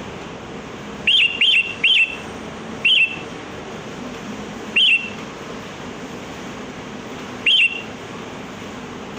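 Sooty-headed bulbul (kutilang) giving short, sharp chirps, each a quick upward flick. Three come in quick succession about a second in, then single calls a second or two apart, over a steady background hiss.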